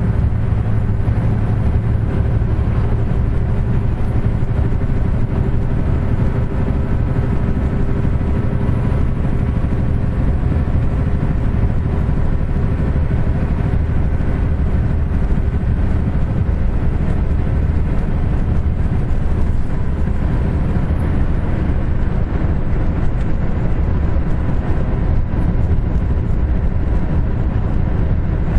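Kenworth T800 semi truck heard from inside the cab: the diesel engine running steadily at cruising speed, mixed with tyre and road noise, its pitch holding level throughout.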